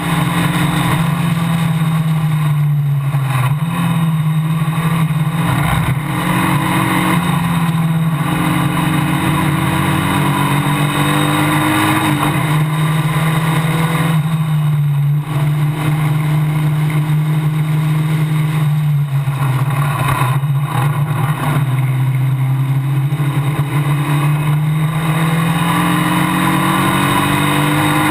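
Formula Basic single-seater race car's engine heard onboard at racing speed. Its pitch climbs and drops several times as the car changes gear and lifts for corners, over a steady rush of wind and road noise.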